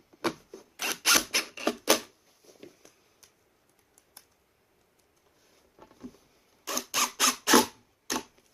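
Hand work on truck interior parts: quick runs of sharp clicks and scrapes from tools and parts being handled. The clicks come in two bursts, one at the start and another near the end.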